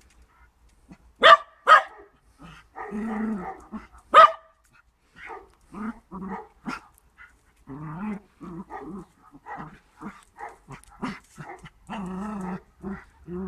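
A beagle and a black dog play-fighting, with long grumbling play growls and many short yaps. Sharp loud barks come twice about a second in and once about four seconds in.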